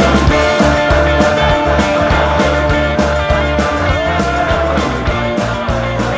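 Folk-rock band music without singing: a long held, sliding lead melody over bass and a steady drum beat.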